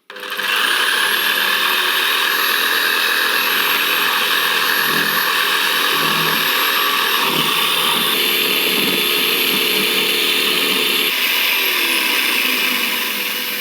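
DeWalt DW331 corded jigsaw running and cutting, with a dust-extraction vacuum attached and running. It starts abruptly with a rising whine as the motor spins up, then runs steadily, easing a little near the end.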